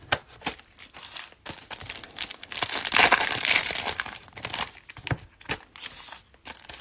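Trading-card pack wrappers crinkling as packs of cards are handled and opened, with a louder crinkly stretch about three seconds in.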